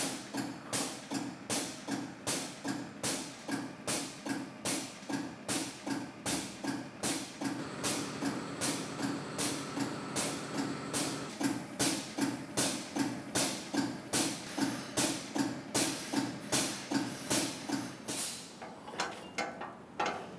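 Shop oil-dispensing pump cycling about two and a half times a second, each stroke a sharp click over a low pulse, as engine oil is pumped through a hose and metered nozzle into a grader's engine. It turns uneven and stops near the end.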